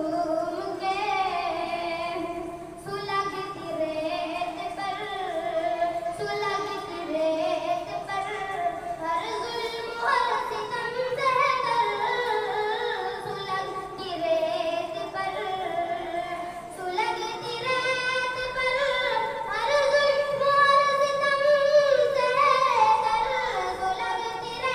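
A single high voice singing a naat, an Islamic devotional poem, in long melodic phrases with held, ornamented notes.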